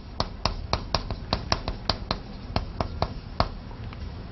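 Chalk striking a blackboard as Chinese characters are written stroke by stroke: a quick run of sharp taps, about four a second, that stops near the end.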